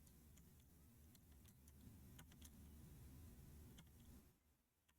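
Near silence: a faint low hum with a few faint computer clicks scattered through it. The hum drops out about four seconds in.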